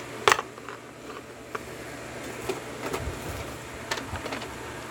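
Handling noise from a lock and small tools on the bench: a sharp click just after the start, then scattered light ticks and taps over a steady background hum.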